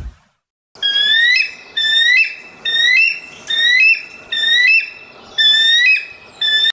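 An animal's high whistled call, repeated seven times about once every 0.8 s, each call rising in pitch and then holding.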